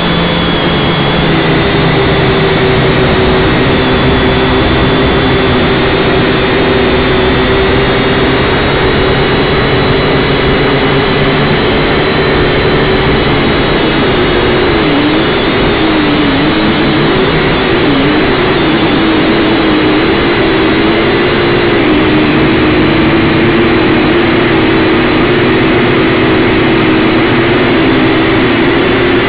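Syma X5C quadcopter's small brushed motors and propellers whining steadily, heard close up from the drone itself. The pitch wavers and dips with throttle changes about halfway through, then settles slightly lower.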